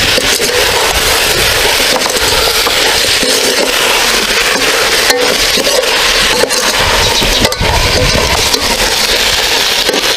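Chicken pieces and spice paste sizzling in an aluminium pot as a metal ladle stirs them, with a few sharp clinks of the ladle against the pot.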